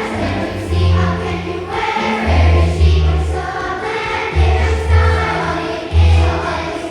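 A school children's choir singing a song, over a deep accompaniment of held low notes that change about every second.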